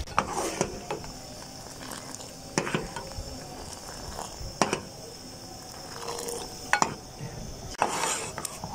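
Steel ladle stirring milk tea in a metal saucepan and knocking against the pan's sides, a sharp clink every second or two, while tea is lifted and poured back from the ladle.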